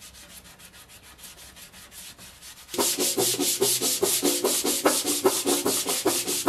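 Hand-sanding a flat steel amplifier cover panel: fast, even back-and-forth rubbing strokes, faint at first and much louder from about three seconds in, with a low ringing note under each stroke.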